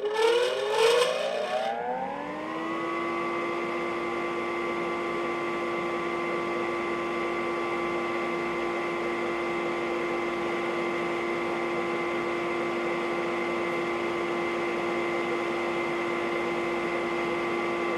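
A household appliance's electric motor starting up. Its whine rises in pitch over about two seconds, with a brief rattle, then it runs at a steady pitch.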